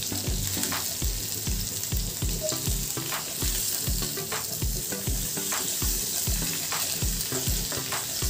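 Marinated chicken pieces sizzling as they fry in butter in a nonstick pan, stirred and turned with a wooden spatula. A steady low thud repeats about two to three times a second underneath.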